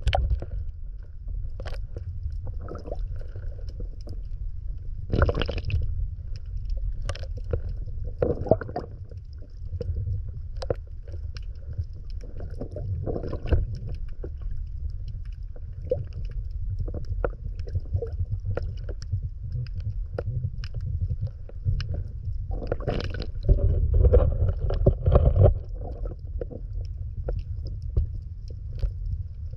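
Water heard from underwater: a steady, muffled low rumble with scattered sharp clicks. Louder sloshing bursts come about five seconds in, briefly again near nine seconds, and for a couple of seconds after twenty-three seconds.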